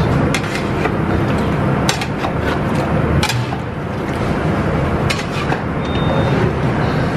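Long metal ladle scraping and knocking against a large steel stockpot as chicken curry is stirred, several sharp clacks over a steady low rumble from the commercial kitchen's burners and extraction.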